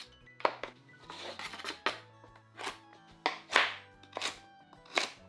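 Chef's knife cutting through carrots and knocking on a wooden cutting board, about six sharp chops roughly a second apart, with a brief scrape or two between them, over soft background music.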